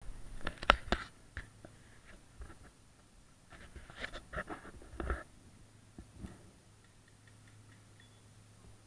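Close handling noise on the camera: a cluster of clicks and rubbing in the first second and another about four to five seconds in, over a faint steady hum.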